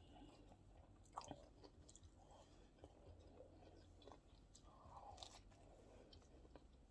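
Faint chewing of food close to the microphone, with scattered soft mouth clicks; the clearest click comes about a second in.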